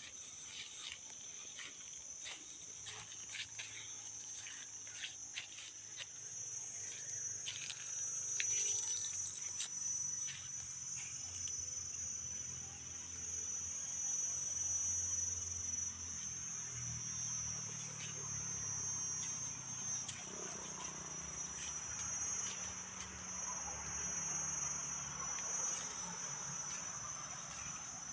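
A steady, high-pitched chorus of insects, crickets or cicadas, that never lets up, with scattered light clicks and crackles in the first ten seconds or so.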